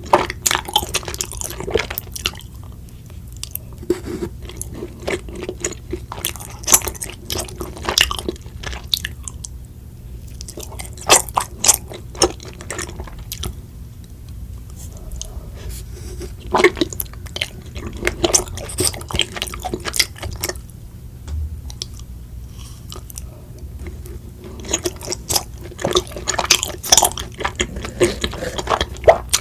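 Close-miked chewing and biting of chocolate mochi: sticky, wet mouth sounds with sharp clicks, coming in bursts every few seconds with quieter stretches between.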